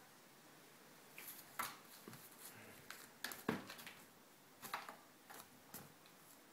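A cat pawing and scrabbling in a plastic laundry basket: a scatter of short scratches and clicks from about a second in, in small clusters, fading out near the end.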